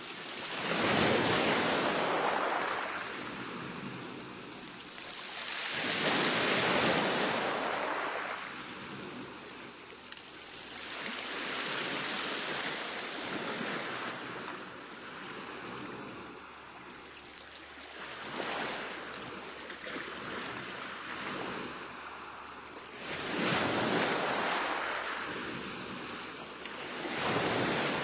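Waves on a rough sea breaking one after another: a loud surge of surf about every five to six seconds, with a steady wash of water between.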